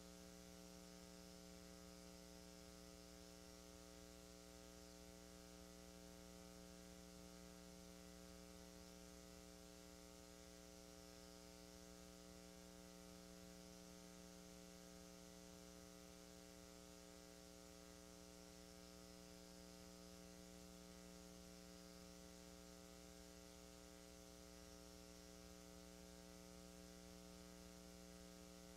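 Near silence: a faint, steady electrical hum made of several steady tones, with a faint wavering high whistle above it.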